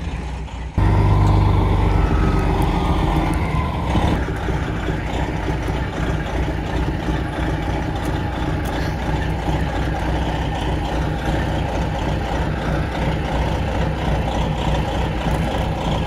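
International cabover semi tractor's diesel engine running as the truck rolls slowly over gravel, a steady drone that gets suddenly louder about a second in.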